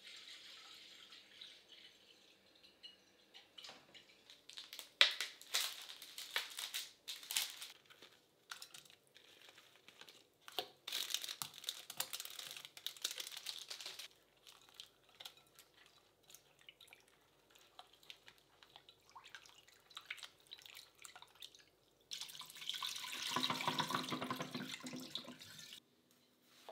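Water splashing and sloshing in a glass bowl as strawberries are rinsed by hand in a stainless steel sink, in short spells with small knocks against the glass. Near the end a louder, steadier few seconds of running water stop abruptly.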